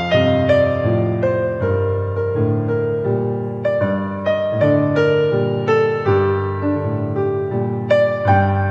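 Instrumental keyboard music with a piano tone: a melody of short struck notes, about two or three a second, over low bass notes and chords.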